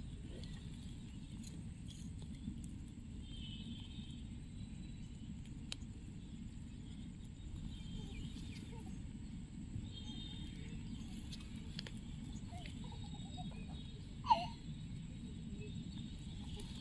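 Open-air rural ambience: a steady low rumble with faint bird chirps and a thin, steady high insect whine. One short, louder sound dropping in pitch stands out about fourteen seconds in.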